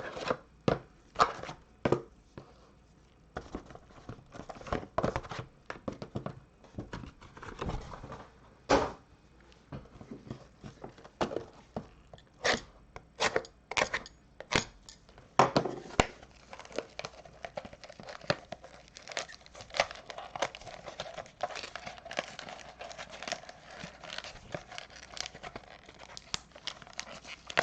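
Trading cards and their plastic packaging being handled at a desk: irregular rustling and crinkling broken by sharp clicks and snaps.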